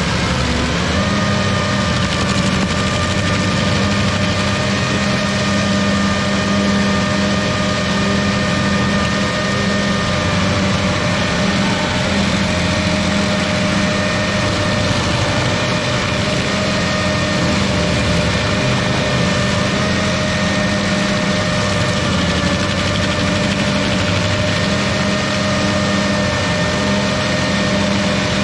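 Carlton 7015 tracked stump grinder running steadily under load as its cutter wheel grinds into a stump, a steady engine drone with a high whine over it.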